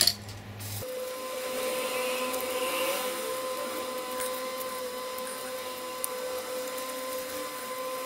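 A small fan or motor running steadily with a constant whine and a hiss; it starts about a second in.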